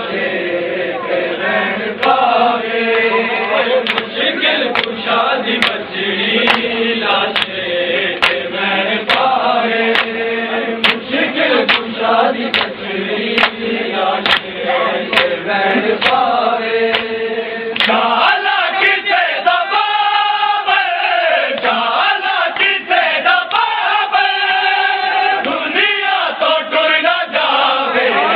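Crowd of men chanting a Shia mourning lament in unison, with hands slapping bare chests in a steady beat of matam. About two-thirds of the way through, the slaps thin out and long held sung notes take over.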